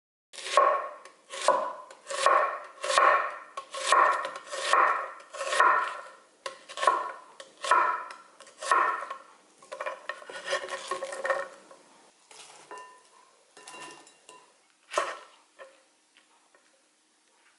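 Kitchen knife slicing onions into strips on a wooden cutting board, a steady stroke about every second, then quicker strokes. Near the end come fainter, scattered cuts with one louder knock.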